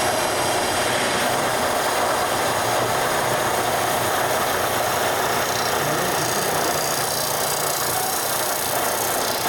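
Steady din of factory machinery running, a constant mechanical noise with no clear rhythm.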